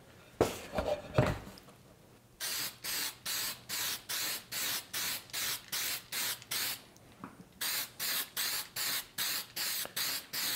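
Aerosol can of CerMark laser-marking spray hissing in short repeated bursts, about two to three a second, with one brief pause a little past the middle. A few knocks come just before the spraying starts.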